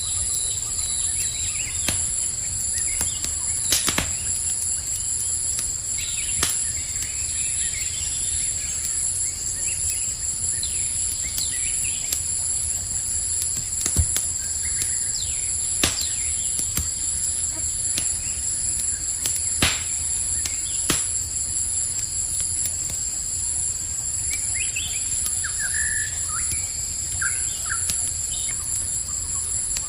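Campfire crackling, with sharp pops every few seconds, over a steady high-pitched chorus of crickets. A few short bird chirps come near the end.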